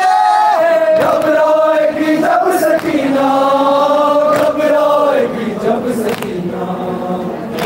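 A crowd of men chanting a Muharram noha (lament) in unison behind a lead singer on a microphone, holding long drawn-out notes. Sharp slaps of chest-beating (matam) fall roughly once a second.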